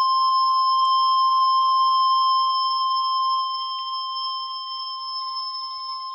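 NOAA Weather Radio warning alert tone, the 1050 Hz alarm that announces a warning broadcast, sounding as one steady, unbroken tone that grows somewhat quieter a little past halfway.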